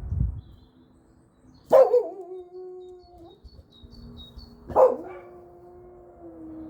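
Cavapoo puppy giving two short howls about three seconds apart. Each starts with a sharp yelp and then holds one steady note for about a second and a half.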